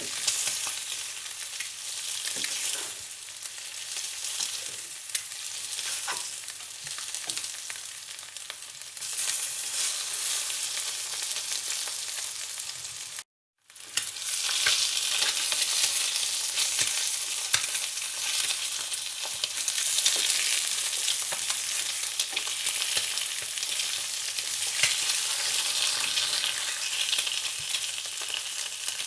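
Food frying in hot oil: a steady sizzle with many small crackles and pops. It cuts out completely for about half a second around the middle, then comes back a little louder.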